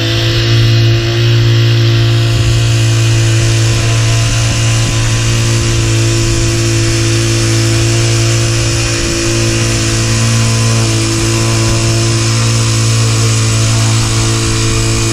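A small gas engine running steadily at a constant high speed, with a strong even hum and no changes in pitch.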